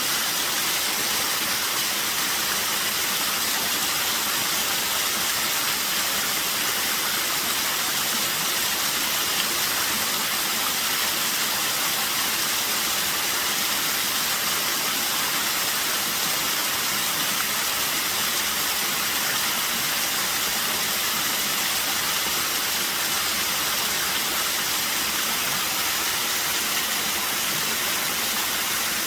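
Small waterfall at a fairly low flow, water falling and splashing in a steady, even rush that stays unchanged throughout.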